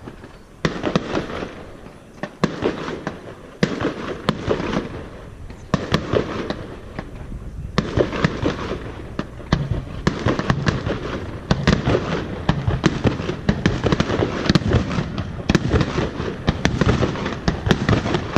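Fireworks bursting in quick succession: many sharp bangs in clusters, with dense crackling between them.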